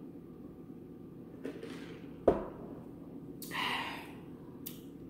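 A single sharp knock about two seconds in, like a paper soda cup being set down on the table. About a second later comes a brief rustle of a cloth wiped over the mouth, over a low steady hum.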